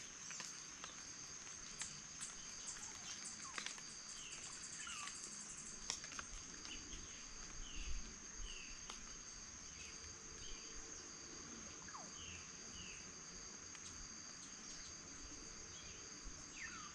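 Insects trilling steadily at two high pitches, with short bird calls, often in pairs, scattered through it.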